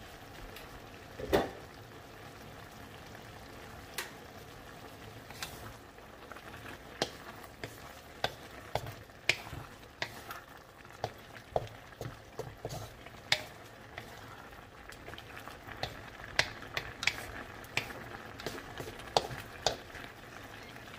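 A wooden spatula stirs eggplant and bok choy in a simmering sauce in a metal wok: a soft steady bubbling and sizzling with frequent sharp knocks and scrapes of the spatula against the pan. A single louder knock comes about a second in, and the knocks grow more frequent toward the end.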